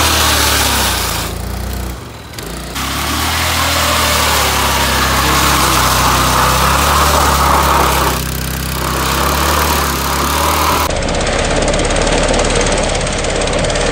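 Hero Maestro scooter engine revved hard while its tape-wrapped rear tyre spins on asphalt in a burnout, a loud steady hiss of tyre scrubbing the road over the engine note. The throttle eases off briefly twice, about two seconds in and again around eight seconds. Near the end the sound changes abruptly to the engine running with a rapid knocking beat and no tyre hiss.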